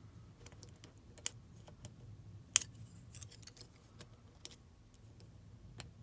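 Small metallic clicks and ticks of a hook pick working the discs of a Chubb AVA disc-detainer cam lock under tension, the sharpest about two and a half seconds in, over a faint low hum.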